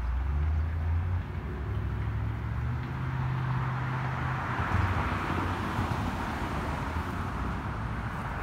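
Road traffic: a low engine hum with a swell of rushing road noise in the middle.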